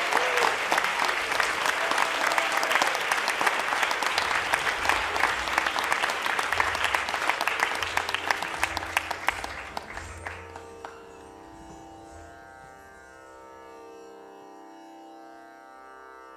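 Audience applauding, the clapping thinning out and fading away about ten seconds in; then soft instrumental music of long sustained tones takes over.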